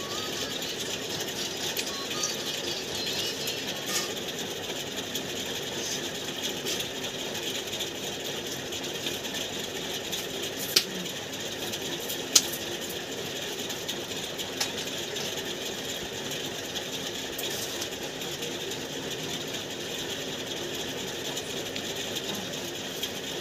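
Electric ceiling fan running with a steady hum, joined by two sharp clicks about a second and a half apart, midway through.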